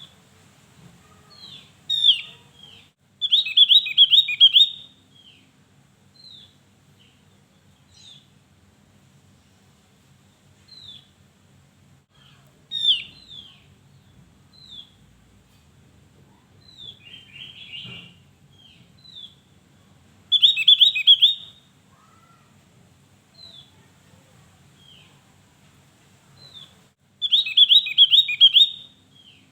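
Javan grey-throated white-eye (Opior Jawa) singing. Three times it gives a loud, fast run of high notes lasting about a second and a half, with scattered single short chirps in between.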